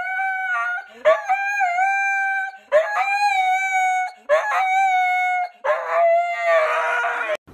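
Husky howling: a string of long, drawn-out howls, four starting in turn after the first trails off, each with a quick upward swoop and then held steady. The last one turns rough and raspy and cuts off suddenly near the end.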